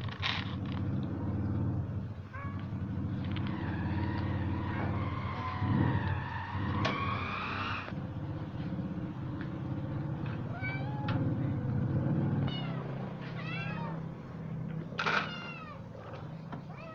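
Caged cats meowing again and again, one long drawn-out meow in the first half and a loud one near the end, over a steady low hum that stops about two-thirds of the way through.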